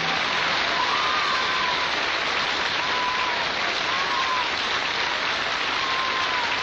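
Audience applauding steadily as a song ends, with the last sustained note of the band dying away in the first moment.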